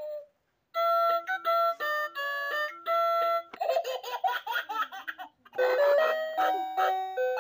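Background music: a melody of short, steady notes stepping up and down, after a brief silence at the start.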